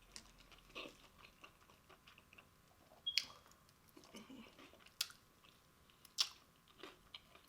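Close-up chewing of fried chicken wings, with a few sharp wet mouth smacks and clicks.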